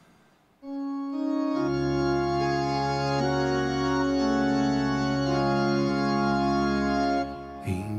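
Organ playing the introduction to a hymn: slow sustained chords, with the bass coming in about a second and a half in and the harmony changing a few times. The chords stop near the end, and a voice begins singing.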